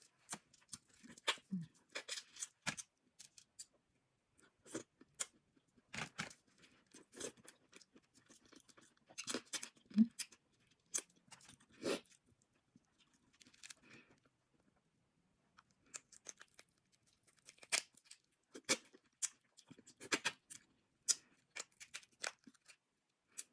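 Close-miked eating of a seafood boil: irregular sharp cracks and crunches of shells being broken, with tearing and chewing between them, and a short lull about two thirds of the way through.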